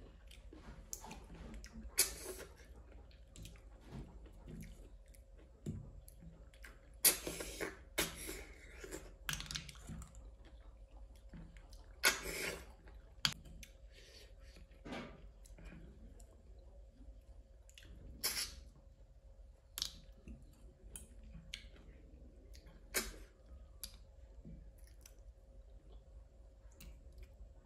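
A person eating close to the microphone: chewing and mouth clicks at an irregular pace, with a few louder short noisy bursts about seven, twelve and eighteen seconds in. A faint steady hum sits underneath.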